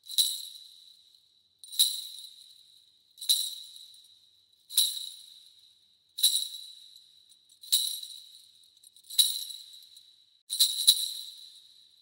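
Kagura suzu, a Shinto bell tree of small metal pellet bells in three tiers on a handle, shaken once about every second and a half. Each shake gives a high jingle that dies away within about a second, eight in all.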